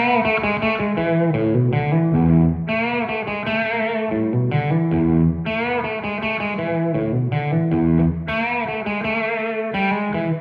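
Gibson Les Paul Custom electric guitar on its bridge pickup (Tom Holmes pickups), played through an OCD overdrive set for a little drive with the tone rolled back slightly. It plays a run of overdriven chords and single-note phrases, with a new phrase struck every second or two and some held notes wavering in pitch.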